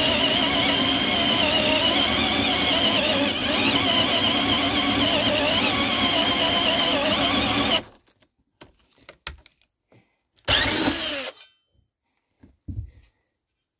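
Cordless electric drill turning a 40 mm hole saw into a wood board. The motor runs under load with its pitch wavering, then stops abruptly about eight seconds in. A few clicks and a second short burst that falls in pitch follow.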